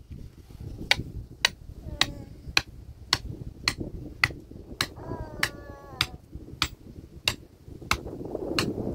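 Steady hammering: sharp, evenly paced blows a little under two a second.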